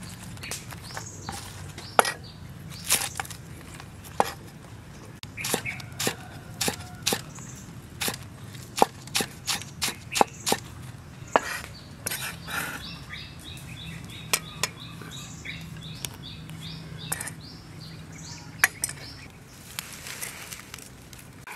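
Cleaver chopping spring onions on a thick wooden chopping block: a run of sharp knocks, about two a second at the busiest stretch in the middle. Near the end, dry palm leaves rustle as they are gathered up.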